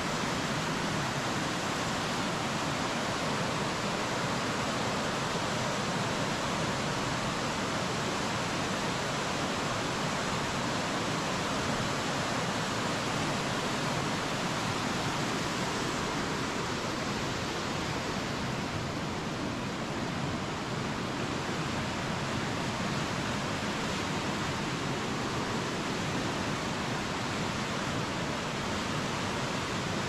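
Waterfall water rushing and splashing in a steady, unbroken wash of noise.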